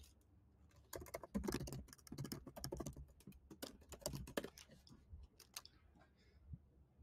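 Typing on a computer keyboard: a fast, uneven run of faint key clicks that stops about five and a half seconds in.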